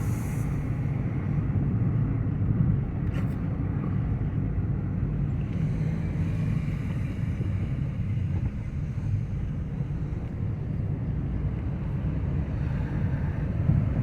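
Steady engine and road rumble of a vehicle under way, with wind buffeting the microphone.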